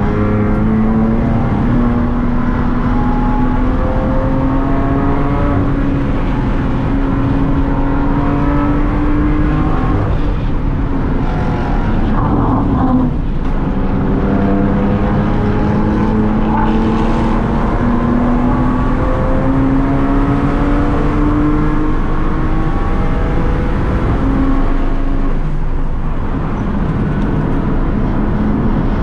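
BMW M2 CS Racing's twin-turbo straight-six heard from inside the cabin under hard driving on track. The engine note climbs steadily in pitch and falls back a few times at gear changes or lifts, over constant road and wind noise.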